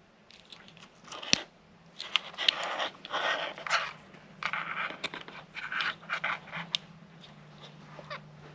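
Plastic wiring-harness connectors being handled and plugged together: rustling and scraping of plastic and wires in short clusters, with a sharp click about a second and a half in.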